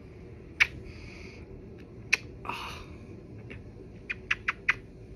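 Kisses on a cat's head: short, wet lip smacks, one at a time at first, then four in quick succession near the end.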